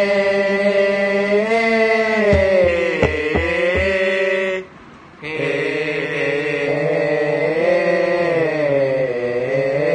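Thai royal barge procession chant (he ruea): the refrain sung as long, drawn-out held notes in two phrases with a short break about five seconds in. A few low thuds sound about two to four seconds in.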